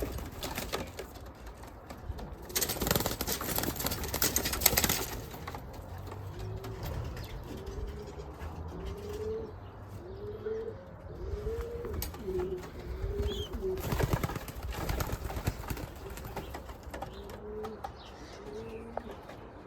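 Racing pigeons cooing, a string of short rising-and-falling coos repeated over and over. Two loud bouts of wing flapping come in, one a few seconds in and one about two-thirds of the way through.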